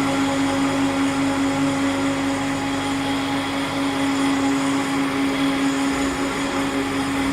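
DFG700 three-phase triple-head floor grinder fitted with 20-segment button plates, running steadily with its dust extraction: a strong constant hum over steady grinding noise.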